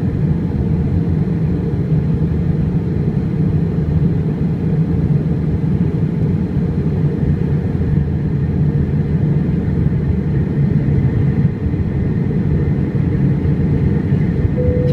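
Steady in-flight cabin noise of an Airbus A320: a constant low rumble of engines and airflow, heard from a window seat beside the wing.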